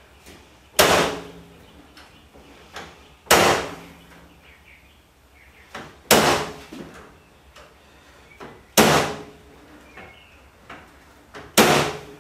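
Corded electric staple gun firing staples through chicken wire into a wooden frame: five sharp snaps, one every two and a half to three seconds, with fainter clicks between them.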